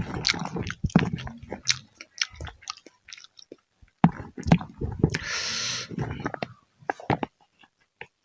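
A person chewing food close to the microphone: irregular wet mouth clicks and smacks, pausing briefly near the middle. Just past halfway there is a short steady hiss lasting under a second.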